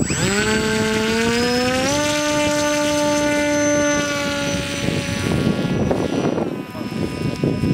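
Zagi RC flying wing's motor and propeller spinning up with a whine that climbs in pitch over about two seconds, holds steady through the hand launch, then fades away after about five seconds as the plane flies off. Low rumble of wind on the microphone underneath.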